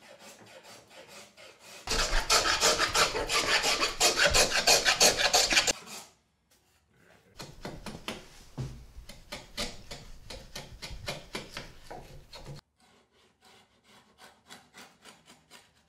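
Hand router plane shaving a wooden tenon cheek flat and to depth, in quick short scraping strokes. The strokes come in runs: the loudest about two seconds in, a pause around six seconds, then softer strokes and fainter ones near the end.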